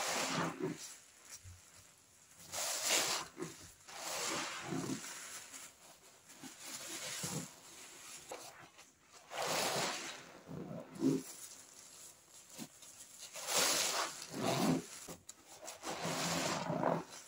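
Rubbing and scraping from handling cleaning products, in about seven bursts of roughly a second each, two to three seconds apart.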